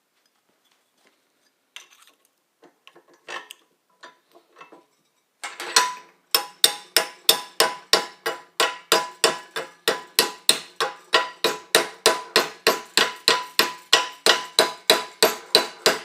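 Hammer striking a brazed copper tube joint clamped in a vise, a few light knocks and then about five seconds in a rapid, even run of about three ringing metal blows a second. The blows bend the joint to test the 15% silver-solder braze, which holds as a strong joint.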